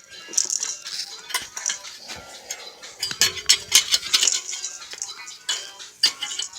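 Metal clinking, knocking and scraping as worn rear brake pads and their metal hardware are worked out of the caliper bracket by hand and tool.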